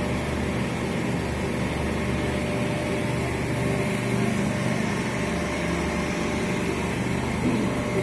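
Small three-phase induction motors, started in sequence through contactors and a timer, running with a steady electrical hum and whir.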